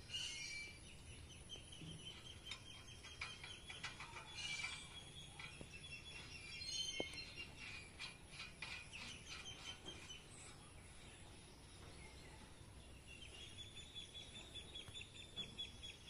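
Faint birds chirping and calling, with scattered light clicks and taps from hands working on the tiller's metal wheel hub, mostly around the middle.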